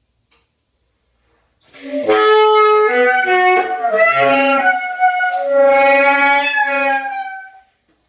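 Saxophone playing a short phrase of several notes that slide and shift in pitch, starting about two seconds in and stopping shortly before the end.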